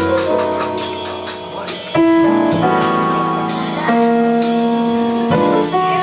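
Jazz piano trio playing live: grand piano chords over double bass, with the drum kit's cymbals keeping time. The chords change about every one to two seconds.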